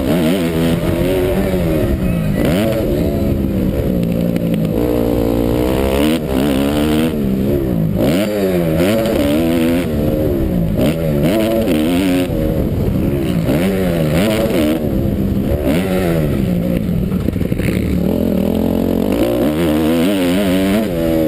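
Motocross bike's engine heard from an onboard camera at racing pace, its pitch sweeping up and dropping back again and again as the rider works the throttle and gears around the dirt track.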